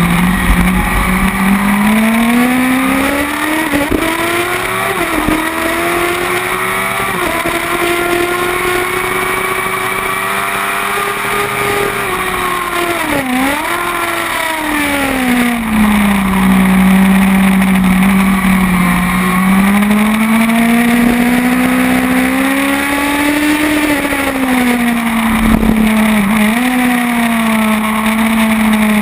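Kawasaki ZX-10R inline-four racing engine at high revs on track, heard from a camera on the bike: the engine note climbs and falls as the rider works through the gears, with a quick drop and rise of revs about halfway through and again near the end, as on downshifts under braking. A steady rush of wind and road noise runs underneath.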